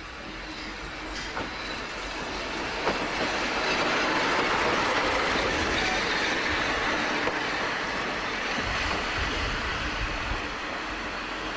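Diesel shunting locomotive running past at close range: engine noise and wheels on the rails build to their loudest about five seconds in, then ease as it moves away.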